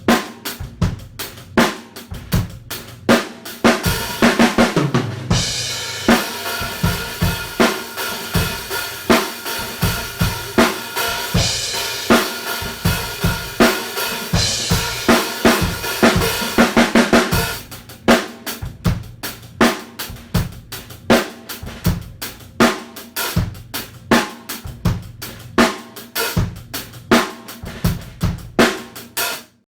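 Drum kit groove with snare and bass drum over Diril 14-inch Primitive hi-hats. From about four seconds in until past halfway the cymbals wash on without a break, then tight, separate strokes return. The playing stops abruptly near the end.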